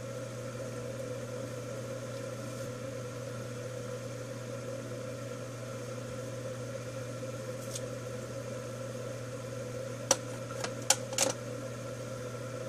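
Steady room hum, with a few short sharp clicks a little over ten seconds in.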